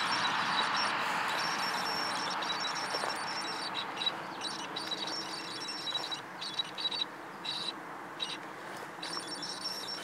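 Image stabilizer of a Canon EF-S 18-135mm IS STM lens whining through the camera's built-in microphone: a high steady tone with a second, higher tone above it, cutting in and out several times in the second half. It is the odd noise the lens makes whenever stabilization is on. A rushing hiss fades over the first few seconds.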